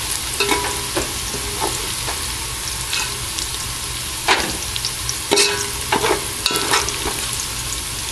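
Browned onions sizzling steadily in hot oil in a steel pot. A slotted metal spoon scrapes and clinks against the pot several times as the onions are scooped out.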